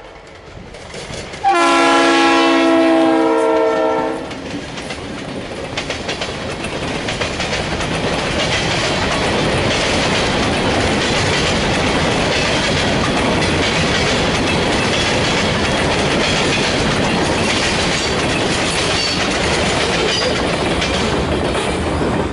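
Diesel locomotive horn sounds one long chord lasting about three seconds, starting about a second and a half in. The freight train then rolls past, its hopper cars' wheels clattering steadily over the rail joints with a loud, even rumble.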